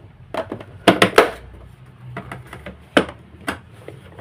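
Sharp plastic clicks and knocks as a screwdriver pries at the snap-fit clips of a vacuum cleaner's plastic housing. The loudest are two clicks close together about a second in and another near three seconds.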